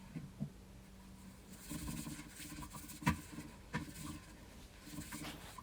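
Faint rustling and handling noise with a few light clicks, the sharpest about three seconds in.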